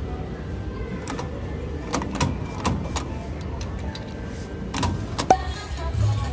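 Metal coin-slide mechanism of a 50p vending machine being pushed and worked by hand: a series of metallic clicks and clunks, the loudest near the end, over a steady low hum. The machine is broken.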